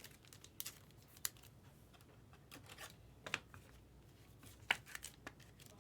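Faint rustling and light taps of trading cards being handled and slid against each other, in short irregular bursts, the sharpest a little past three seconds in and near five seconds.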